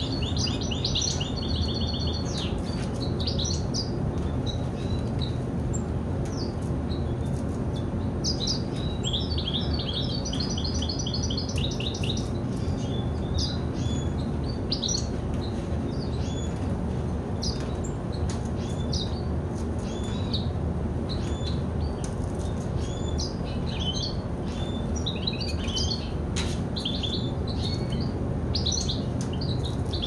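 Hooded siskin × red siskin × canary tri-hybrid finch singing: fast trilled phrases at the start and again about a third of the way in, with scattered chirps and twitters between, over a steady low hum.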